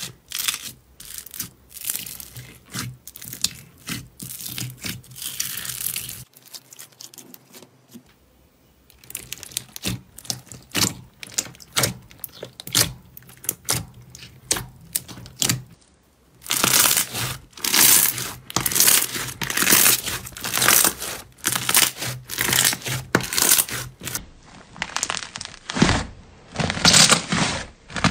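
Hands squeezing and pressing slime, which gives rapid crackling and crunching clicks: first a foamy slime and a clear slime packed with plastic beads, then a thick yellow slime pulled apart near the end.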